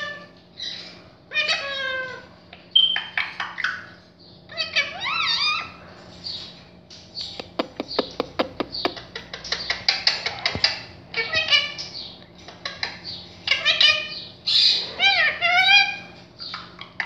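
Indian ringneck parakeet chattering and talking in short, separate bursts of squawky, pitch-gliding notes. Midway there is a rapid run of clicks lasting about two seconds.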